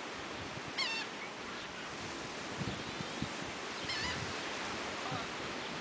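Two short, high, wavering bird calls, the louder one about a second in and another near four seconds, over a steady rushing background noise.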